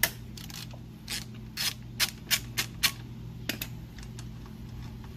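Sharp, irregular metal clicks and clinks of a hand tool working the mounting bolt under a Harley-Davidson muffler, about eight in the first three and a half seconds, over a steady low hum.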